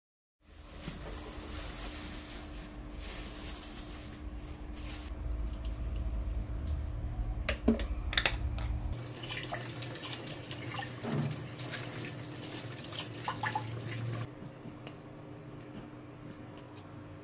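Tap water running into a plastic colander of jamun fruit as they are rinsed by hand, with a few sharp clicks about eight seconds in. The water sound drops off about fourteen seconds in.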